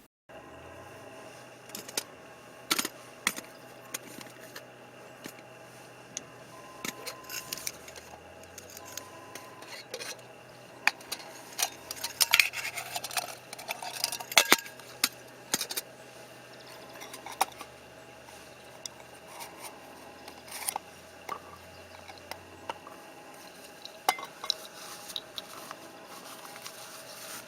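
Irregular clinks and knocks of hard objects being handled, a few of them sharp, busiest around the middle, over a faint steady hum.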